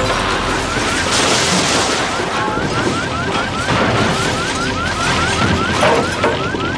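A building fire burning, a dense steady rush with clatter. From about a second and a half in, an alarm repeats a short rising tone about four times a second.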